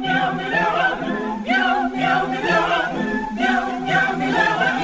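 Several voices singing together without instruments, in held, wavering notes phrase after phrase.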